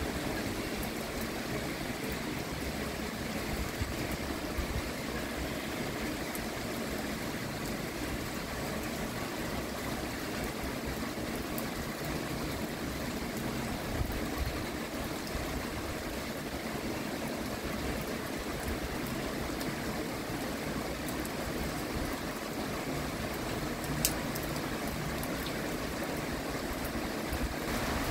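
Steady rain falling, an even hiss, with a single sharp tick near the end.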